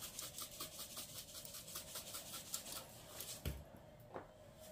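A plastic shaker of garlic salt shaken rapidly and evenly, the granules rattling faintly as they are sprinkled onto a pork roast. The shaking stops about three and a half seconds in, followed by a soft thump and a light knock.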